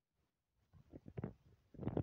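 Irregular low rumbling thumps and bumps on the microphone, beginning about half a second in, with a couple of sharper knocks among them.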